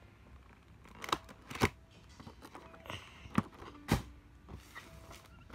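Hands handling a cardboard box and a plastic bag: a few scattered faint taps and knocks with soft rustling between them.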